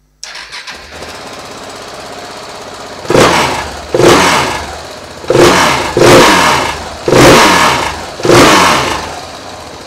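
KTM 690 Enduro R single-cylinder engine starting through its standard exhaust and settling into a steady idle. It is then blipped six times in quick succession, each rev rising and falling back to idle.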